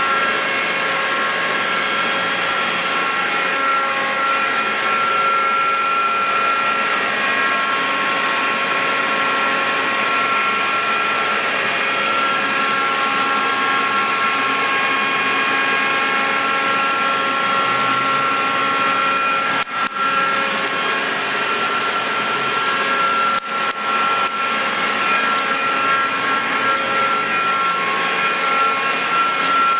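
Mori Seiki NL1500 CNC lathe running: a steady mechanical whine made of several held tones over a hiss, with two brief dips in level about twenty and twenty-three seconds in.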